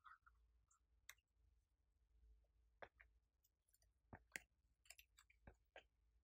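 Faint, scattered clicks and soft taps from hands handling a silicone mould and setting modelling-clay slices down onto a tray of glittery slime, about eight small sounds spaced unevenly.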